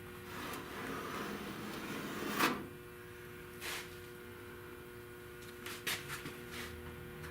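Body-filler work on a car's rocker panel: a rasping scrape for the first couple of seconds ends in a sharp knock, followed by a single click and then a few light clicks and taps as tools are handled, over a steady hum.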